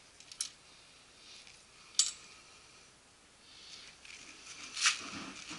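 Three sharp clicks from handling the loaded 3D-printed speargun, a couple of seconds apart, the middle one the loudest.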